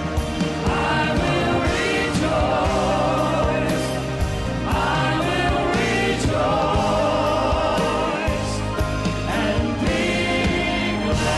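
Gospel worship music: a choir singing long held notes over band accompaniment with a steady beat.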